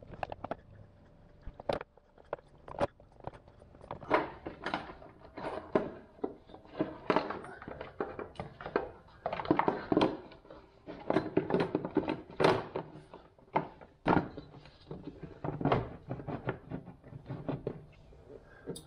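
Irregular knocks, clicks and scrapes of hands fitting bolts and plastic parts around a side-by-side's airbox and frame.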